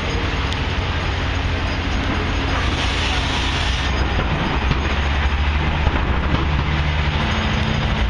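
PATH commuter train running close by: a steady low hum and rail rumble, with a brief hiss about three seconds in and a second low tone joining about halfway through.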